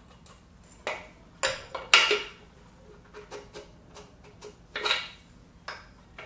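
Light metallic clinks and clicks of a piston ring and small tools against the bare aluminium cylinder block of a Suzuki Samurai 1.3L engine, as the ring is worked into a bore to check its end gap. Several sharp clinks come in quick succession about a second or two in, the loudest near two seconds, then scattered softer ticks and one more clear clink near five seconds.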